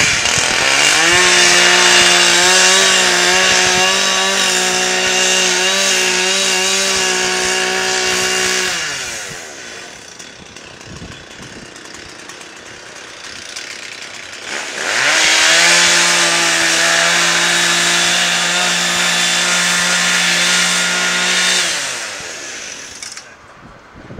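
Gas-powered two-stroke saw run at full throttle twice, each run about seven seconds, its engine pitch climbing as it revs up and dropping as it winds down, with a quieter lull between the runs. It is cutting open a burned deck to check for hidden fire.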